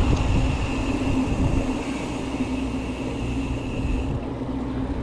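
Strong wind buffeting the microphone during a bicycle ride, a heavy rumble, with a steady hum and a thin high whine over it; the whine stops about four seconds in.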